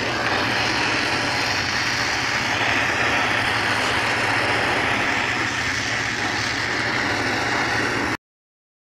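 Gas brazing torch flame hissing steadily as it heats the joint between a steel handle and the die stock ring. It cuts off suddenly near the end.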